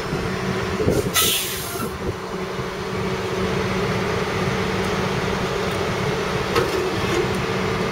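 Truck engine running steadily while the flatbed slowly drags the crated lift off the trailer, with a short hiss about a second in and a couple of light knocks near the end.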